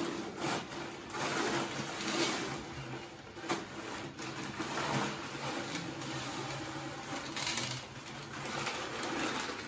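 Plastic bag rustling and ornaments being set down in an empty glass aquarium, with a few short clicks of objects against the glass or gravel, over a faint low hum.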